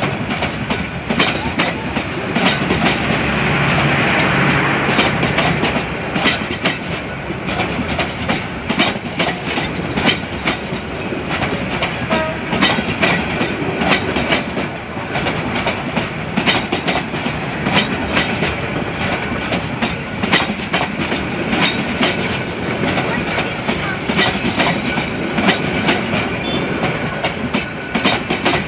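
Coaches of a long Bangladesh Railway metre-gauge intercity passenger train rolling past close by, the wheels clicking over rail joints in a continuous, irregular clickety-clack over the rumble of the running gear.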